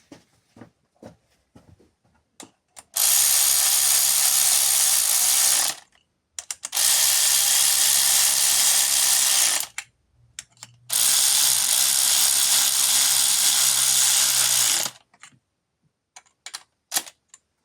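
Power ratchet running in three bursts of three to four seconds each, with a few short clicks in the gaps between them.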